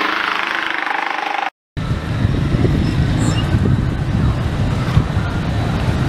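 Street traffic: a motor vehicle's engine whines past, then after a brief dropout a steady low rumble of traffic takes over.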